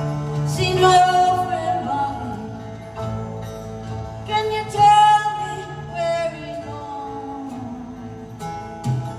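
Live music: a woman singing a verse of a song over band accompaniment.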